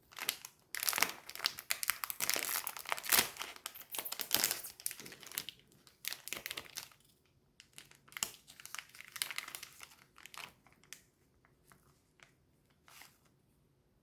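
Food packaging being crinkled and torn open: a long stretch of crackling and rustling, a short pause, a second bout, then a few light rustles and clicks near the end.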